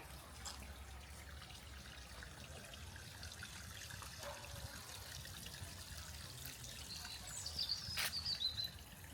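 Small garden waterfall trickling and splashing steadily. Near the end a bird gives a high call that falls and wavers, the loudest sound here.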